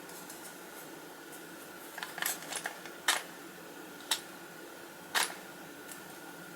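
Sharp clicks and taps of small metal parts being handled on a toy car during reassembly: a quick cluster about two seconds in, then single clicks roughly a second apart.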